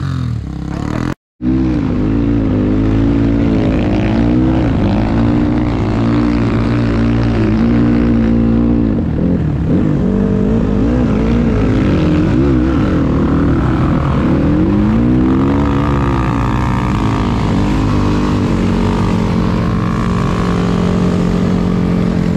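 Dirt bike engine heard close up from a camera mounted on the bike, its pitch rising and falling again and again with the throttle as it is ridden over sand. The sound cuts out for a moment about a second in.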